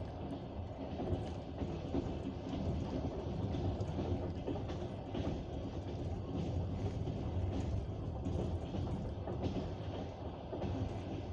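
Passenger train running, heard from inside the carriage: a steady rumble with the clatter of wheels on the track.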